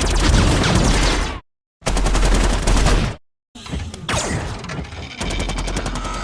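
Starscream's weapon fire from the Bayverse Transformers films: three separate bursts of rapid-fire sci-fi gunfire, the last one longer, with falling whooshes in it.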